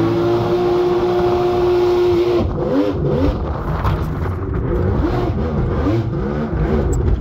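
Mini jetboat's two-stroke, two-cylinder engine running hard at a steady pitch. From about two and a half seconds in, its pitch rises and falls roughly twice a second as the revs swing up and down.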